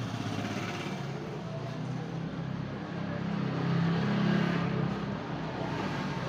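A vehicle engine running steadily, growing louder for about a second past the middle.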